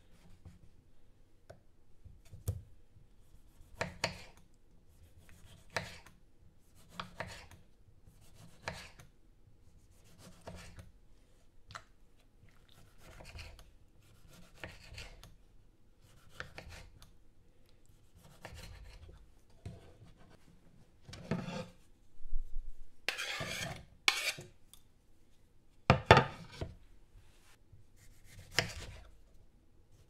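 Kitchen knife cutting through tomatoes and meeting a wooden cutting board: separate, unhurried cuts every one to two seconds, each with a short rasp. About three-quarters of the way through there is a longer, louder run of cutting, followed by two more sharp cuts.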